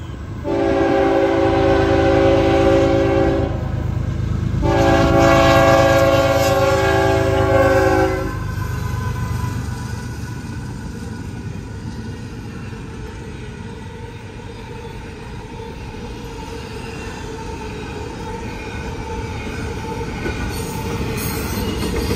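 CSX ET44AH locomotive's Nathan K5HL five-chime air horn sounding two long blasts, the opening of the grade-crossing signal. Then the train rolls past with a steady rumble of steel wheels on rail as the double-stack container cars go by, growing louder near the end.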